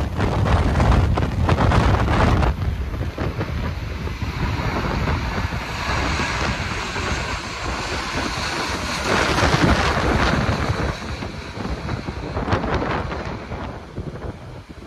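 Strong gusty wind buffeting the microphone. Under it, the jet engines of a landing Airbus A330-300 swell to a peak about two-thirds of the way through, then fade.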